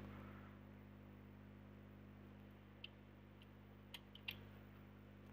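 Near silence with a steady low hum and a few faint clicks in the second half.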